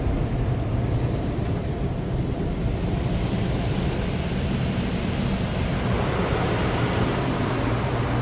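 Automatic tunnel car wash heard from inside the car: a steady low hum with cloth wash strips sweeping over the windshield and water spraying on the glass. The spray hiss grows louder about halfway through.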